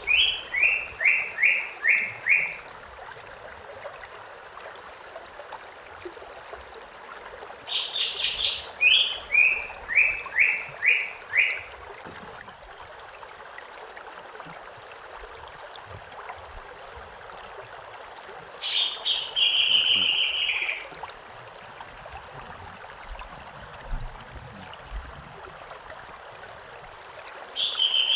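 A songbird singing over the steady rush of a stream. Its phrase is a quick run of high notes followed by five or six evenly spaced lower notes, and it comes at the start and again about 8 seconds in. About 19 seconds in there is a shorter phrase ending in a held buzzy note, and another phrase begins near the end.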